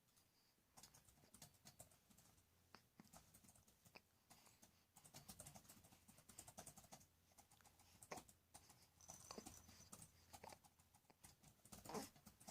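Faint, irregular small clicks and rustling, with a short curving sound near the end.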